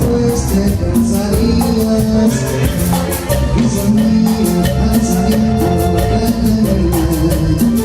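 Cumbia band playing live, an instrumental passage with a bass line, sustained melody notes and steady high percussion strokes keeping the beat.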